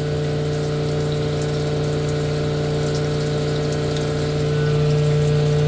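Sunnen SV-10 honing machine running, its diamond stones honing an engine block cylinder: a steady, even machine hum.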